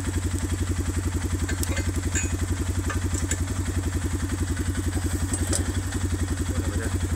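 Arctic Cat ATV engine idling steadily with an even, rapid pulse, with a few light metallic clinks from the quick-attach plow mount being handled.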